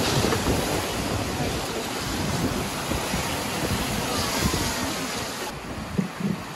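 Rushing water and wind buffeting the microphone, a steady, dense wash of noise; the high hiss drops away about five and a half seconds in.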